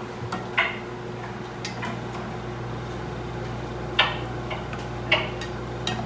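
Wooden spurtle knocking and scraping against a stainless steel skillet of cooked chip steak as the meat is lifted out, about half a dozen light, separate knocks a second or so apart over a steady low hum.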